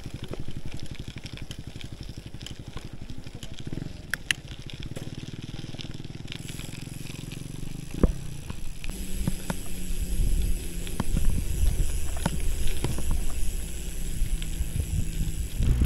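Gravel bike rolling along, heard from a camera mounted on the bike: tyre noise on concrete, a single knock about eight seconds in, then a rougher, louder rumble and crunch as the tyres run onto a rutted dirt and gravel road.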